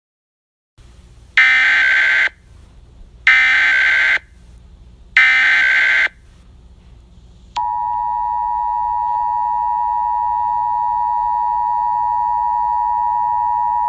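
Emergency Alert System SAME header: three bursts of rapid digital data tones, each about a second long and a second apart. About halfway through, the EAS two-tone attention signal (853 and 960 Hz together) starts and holds steady.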